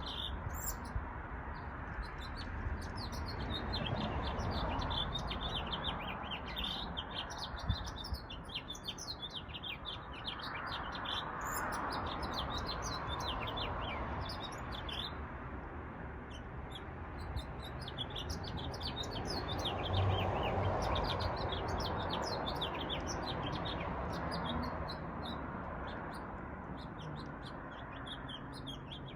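Many small birds chirping and twittering, a dense run of short, high, quick notes with no pause. Under them a steady rushing background swells and fades a few times.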